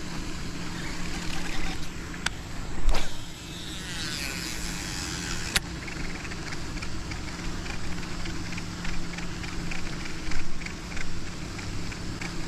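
Baitcasting reel being cranked in a retrieve, with faint fast ticking from the reel, over a steady low hum, and a few sharp clicks in the first six seconds.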